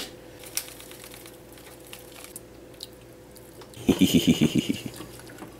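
A hand squishing and mixing pieces of raw skate wing in a bowl to work in seasoning. It comes as a quick run of wet squelching strokes about four seconds in, after a stretch of faint small clicks.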